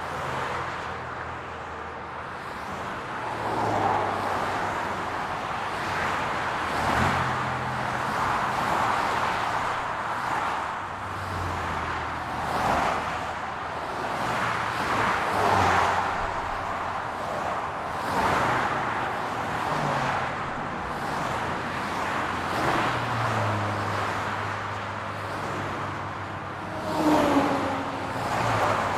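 Highway traffic: a continuous hiss of tyres and engines as vehicles pass close by one after another, every second or two. The loudest pass, with a falling pitch, comes near the end.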